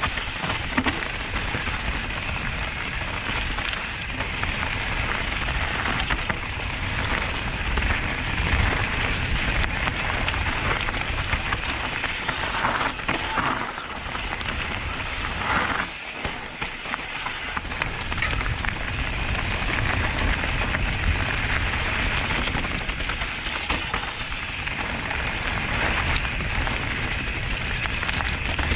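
Mountain bike riding fast downhill over a trail of dry fallen leaves: a continuous crackling rush of tyres through the leaves with small knocks over bumps, and wind rumbling on the camera microphone.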